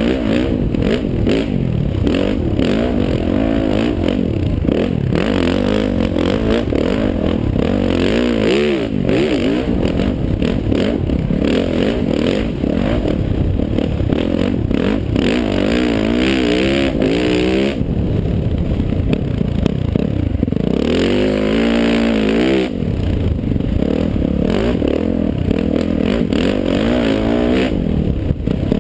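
Dirt bike engine revving up and down again and again as the bike accelerates and backs off on a trail, with rumble and knocks from the helmet-mounted camera's microphone.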